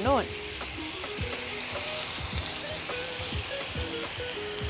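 Fish stew with peppers and thick coconut milk sizzling and simmering in a frying pan on a gas burner, a steady hiss, with soft background music underneath.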